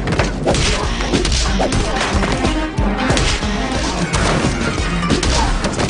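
Automatic gunfire, a string of sharp shots with bullets smashing into a wall, over music.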